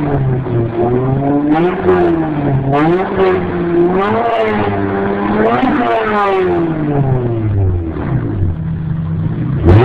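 Acura TL (UA5) V6 heard at its tailpipe, free-revved while stationary. The note climbs and drops in several quick blips, sags in a long slow fall back toward idle, then shoots up sharply just before the end.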